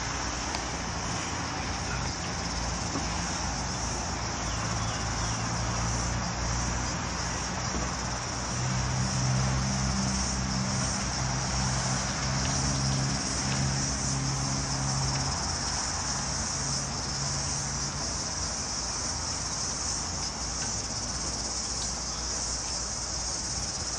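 Steady high-pitched insect chorus, with the low hum of an engine underneath that grows louder about eight seconds in and dies away about eighteen seconds in.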